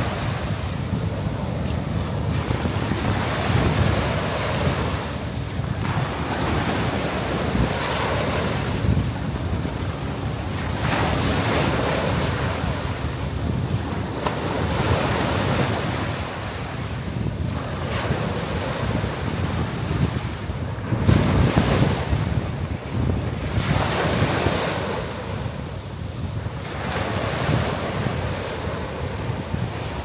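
Small waves breaking and washing up a sandy beach, a new surge of foamy hiss every few seconds. Wind buffets the microphone underneath as a low rumble.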